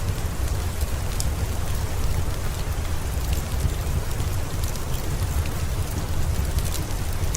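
Steady rain falling, with a strong low rumble underneath and scattered sharp ticks.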